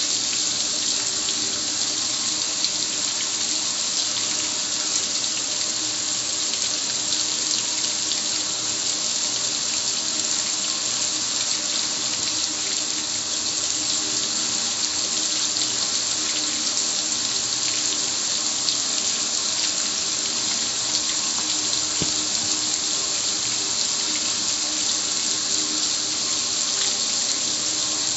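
Water sprayed from a hand-held nozzle onto a gas grill, splashing steadily on its metal lid and control panel and running off in streams.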